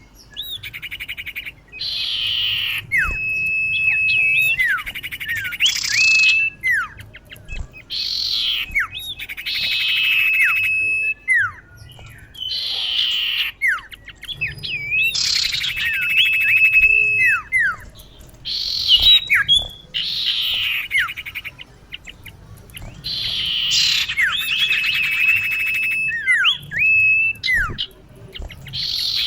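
Common iora (cipoh) female calling to a male: repeated phrases of harsh, buzzy chatter mixed with quick downward-sweeping whistles and a long steady whistle. The phrase comes round again every four to five seconds.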